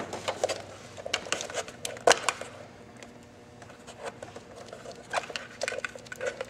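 Small screwdriver scraping and prying a rubber wire grommet out of the back of a plastic speaker box: irregular clicks and scrapes, with a quieter stretch in the middle.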